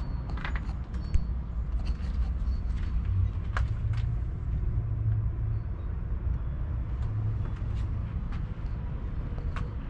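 Outdoor background rumble, steady and low, with a few sharp clicks: one about half a second in, one in the middle and one near the end.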